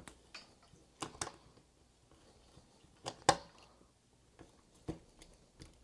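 Utility knife cutting and scraping into the plastic insulation of 450-ohm ladder line against a wooden block: scattered light clicks and scrapes, the sharpest about three seconds in.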